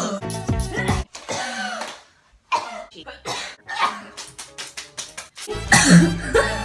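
A girl coughing again and again in short bursts, over background music; the loudest cough comes near the end.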